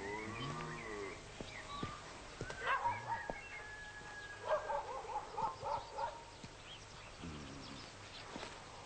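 A dog whining and barking, with a quick run of short barks in the middle.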